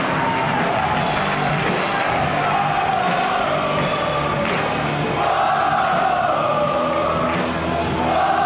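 A large group of boys singing together in unison over backing music, their massed voices rising and falling as one.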